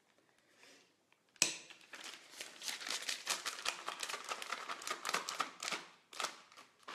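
Disposable plastic piping bag crinkling and rustling as it is handled and squeezed to work buttercream down towards the tip. The crackling starts suddenly about a second and a half in and keeps going, with a short pause near the end.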